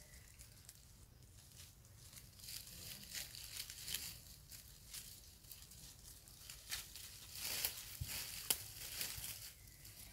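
Dry fallen leaves crackling and rustling in irregular bursts. It starts a couple of seconds in and is busiest in the second half, with one sharp snap.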